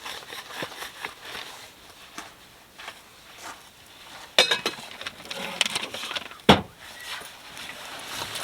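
Dishes and cutlery clinking and knocking together as they are washed by hand, with a cluster of ringing clinks about four and a half seconds in and a single louder knock about two seconds later.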